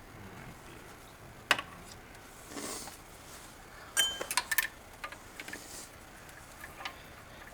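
A few scattered metallic clicks and clinks: one about a second and a half in, then a quick cluster with a slight ring around the middle. These are metal parts knocking together as the new oxygen sensor is offered up to its threaded hole in the exhaust.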